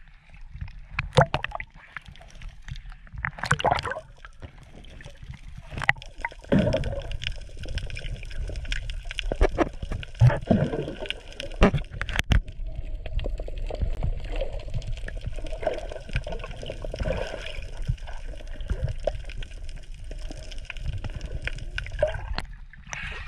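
Seawater splashing and gurgling around a swimmer at the surface, then the muffled sound of being underwater from about six seconds in: a steady hum with bubbling and sharp clicks.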